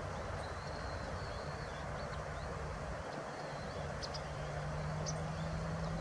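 Riverside outdoor ambience: a steady broad hiss, with a low steady hum that comes in about a second and a half in and a few faint high bird chirps.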